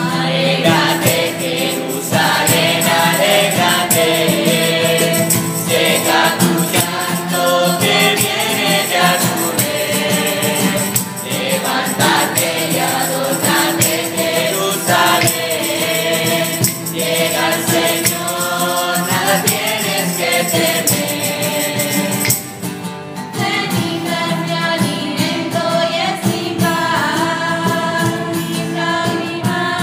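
Mixed youth choir singing a Spanish church hymn to strummed acoustic guitar and tambourine, with a brief lull about three-quarters of the way through.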